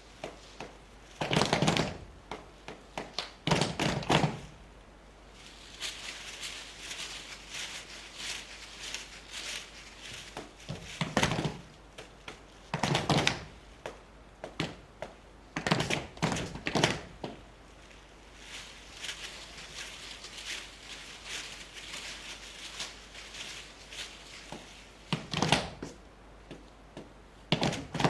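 Irregular knocks and thuds, some coming in quick clusters, with lighter tapping between them.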